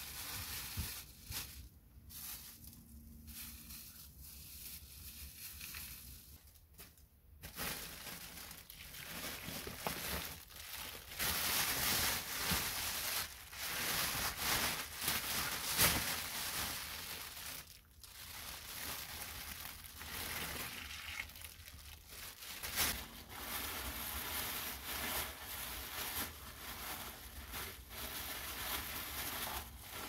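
A clear plastic bag with soil in it crinkling and rustling as it is handled, in irregular bouts that are loudest and most continuous around the middle.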